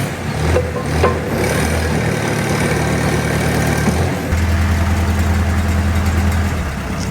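Log splitter's engine running steadily to drive the hydraulic pump, its note shifting to a different pitch about four seconds in.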